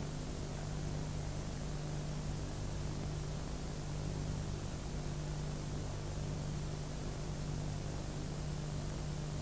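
Steady hiss with a low, even hum underneath: the background noise of the recording and its sound system during silence.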